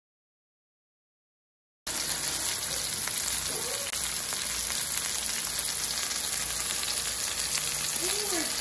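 Silence, then about two seconds in a steady sizzle cuts in: seasoned chicken breasts searing in hot olive oil in a stainless steel skillet over medium-high heat.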